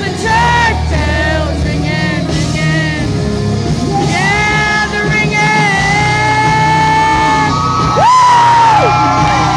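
Live country-pop band playing under a female lead singer, who holds long notes with vibrato and swoops up into a high belted note near the end.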